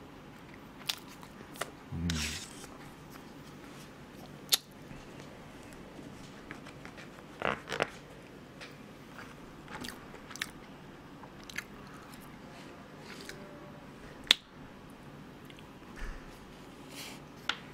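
Close-up eating sounds: soft bread and cream being chewed with wet mouth clicks, broken by scattered sharp clicks and short rustles as a plastic knife cuts a roll cake on its plastic tray.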